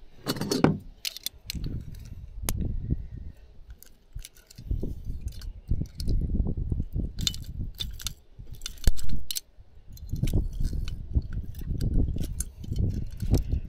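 Fishing tackle handled in a boat: metal clinking and jangling among irregular knocks and bumps.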